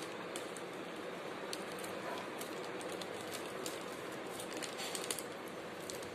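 Small scissors snipping at a crinkly plastic treat wrapper: scattered sharp little clicks and rustles over a steady background hiss.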